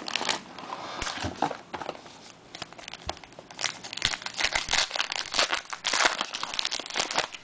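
Wrapper of a baseball card pack crinkling and tearing as it is ripped open, the rustling coming in irregular spurts.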